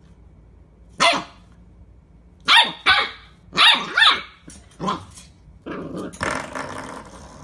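A dog barking: about six short, sharp barks at irregular intervals, each falling in pitch, followed near the end by a couple of seconds of rough, noisy sound.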